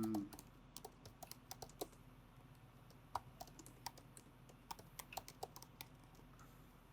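Faint, irregular typing on a computer keyboard, with quick clicks in short runs.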